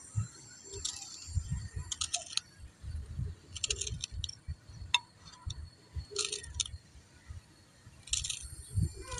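Small knife slicing through a bunch of green onions held over a clay bowl: short clusters of crisp crunching cuts every second or two, with dull knocks and a sharp clink of the blade on the bowl about five seconds in.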